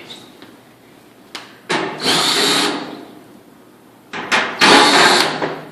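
Power drill with a quarter-inch nut driver bit running in two bursts of about a second each, each opening with a short blip, backing screws out of a clothes dryer's sheet-metal back panel.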